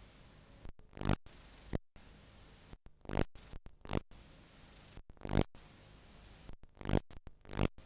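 Playback noise from an unrecorded stretch of analogue videotape: a steady hiss broken by irregular short bursts of crackling static about once a second, with brief sudden cut-outs in between.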